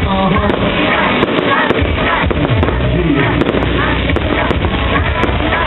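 Loud live pop music with a singing voice over a concert sound system, recorded harsh and crackly with sharp clicks scattered through it.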